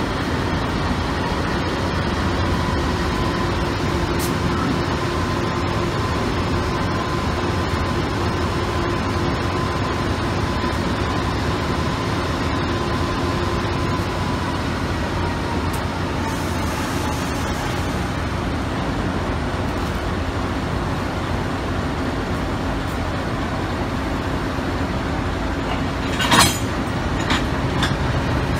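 NR-class diesel-electric locomotive running at low power as it inches up to the carriages to couple, a steady engine rumble with a held whine that fades out about two-thirds of the way through. A short, sharp bang comes about two seconds before the end.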